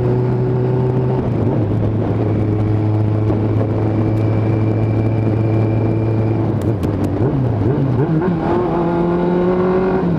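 Suzuki GSX750F's inline-four engine through a full aftermarket exhaust, heard from the rider's seat while riding. It runs at a steady cruising note, dips briefly about a second in, wavers and drops around seven seconds, then climbs in pitch as the bike accelerates near the end.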